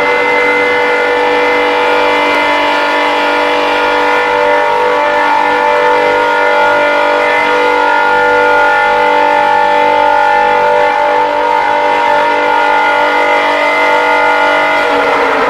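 Loud electronic emergency alert alarm: several steady tones held together at a fixed pitch, the strongest near 1 kHz, in the manner of an Emergency Alert System attention signal.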